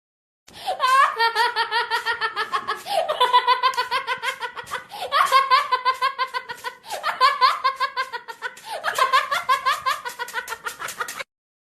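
Laughing sound effect: one high-pitched voice laughing in rapid "ha-ha-ha" pulses, about eight a second. It comes in five bouts of roughly two seconds, each opening with a rising whoop.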